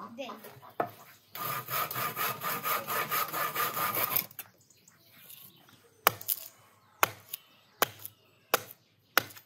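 Hand saw cutting through a thin wooden log in quick back-and-forth strokes for about three seconds. Then a hatchet strikes a wooden stick on a chopping stump, about eight sharp chops over the last three seconds.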